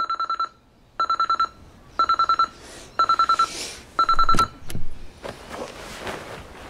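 Digital alarm clock beeping in quick clusters of about five high beeps, one cluster each second, five times. About four and a half seconds in it is cut off by a knock as it is slapped off, and bedclothes rustle after.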